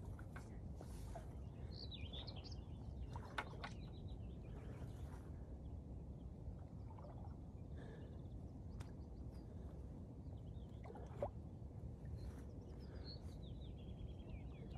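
Outdoor ambience: a steady low rumble with faint bird chirps about two seconds in and again near the end, and a couple of light knocks.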